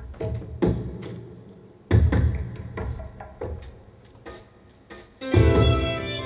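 Live instrumental music: sparse, irregular drum-like strikes with deep thuds and sharp clicks, each dying away between hits. About five seconds in, a violin comes in with sustained notes over them.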